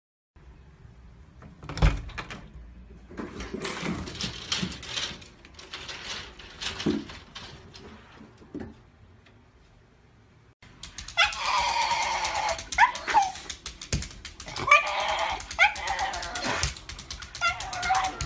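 A dog vocalising: a stretch of scattered knocks and noise, then, a little past halfway, a run of loud, high whines and yips that bend up and down in pitch.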